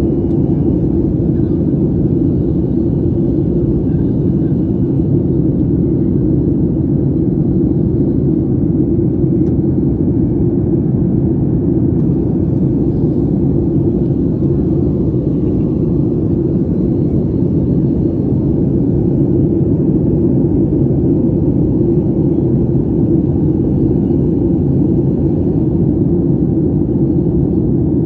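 Steady cabin noise of a jet airliner in flight, the engines and rushing airflow heard from a window seat as a deep, even rumble that does not change.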